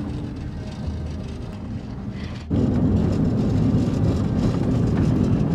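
A car driving, heard from inside the cabin: a steady low road-and-engine rumble. About halfway through it jumps abruptly louder into a denser rush of road and wind noise.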